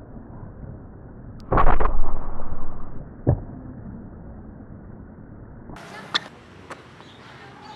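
Fight sound effects over a flying-kick scene: a loud rushing burst about a second and a half in that lasts over a second, then a single sharp hit a little after three seconds, with muffled background throughout.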